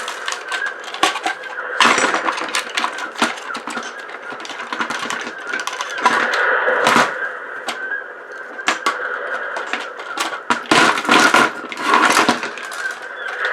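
Plastic and metal parts of a refrigerator ice maker being pried apart and handled, with many irregular clicks, cracks and clattering knocks, in louder clusters about two, seven and eleven to twelve seconds in.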